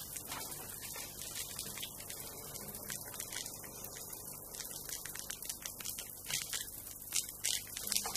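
Shower water running, a steady spattering hiss, with a faint low hum underneath.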